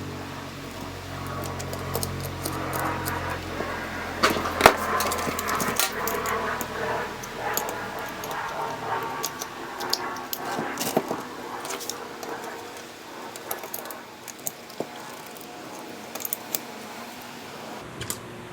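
Small transformer humming from its loose metal laminations, mixed with metallic clicks and clinks of bolts and tools being handled. The hum dies away about eight seconds in, leaving only scattered clicks.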